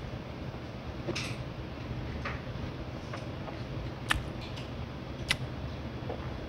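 Quiet eating sounds of a person chewing, with about four short sharp clicks spread through, over a steady low hum.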